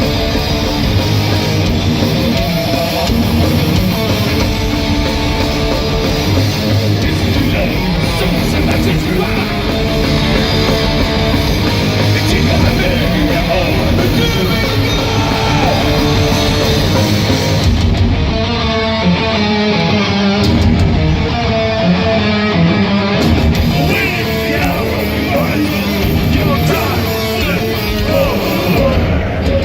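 Thrash metal band playing live: fast, heavily distorted electric guitars over bass and drums, loud and unbroken. About two-thirds of the way through, sliding, wavering high notes come in over the riffing.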